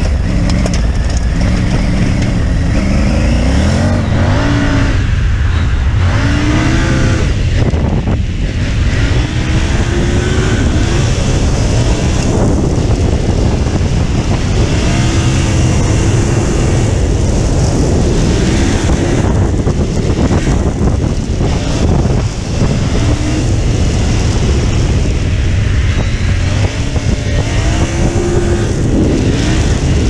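Triumph Tiger 900 Rally Pro's inline three-cylinder engine under way on sand, its pitch climbing under throttle and dropping at each gear change, several times over. A heavy wind rumble on the helmet-mounted microphone runs underneath.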